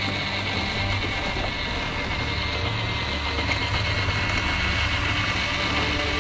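Traxxas TRX-6 6x6 RC truck driving over a dirt road, its electric motor and gears giving a steady high whine under the crunch of the tyres. Background music plays over it.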